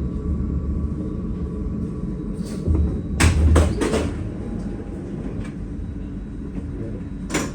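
Tram running on its rails with a steady low rumble, a cluster of sharp clacks with thumps about three seconds in and one more clack near the end; the rumble eases a little after the clacks.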